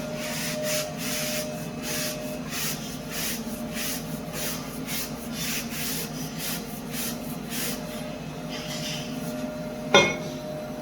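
Rhythmic rubbing or scraping strokes, about three a second, over a steady low hum. They stop near the end, shortly before a single sharp knock.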